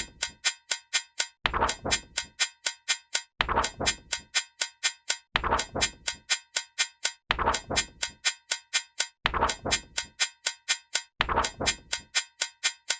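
A rapid, steady series of short metallic ding sound effects, about four a second, each marking one count. Every eighth one is a heavier clang, about every two seconds, in step with the octal count rolling over to the next digit.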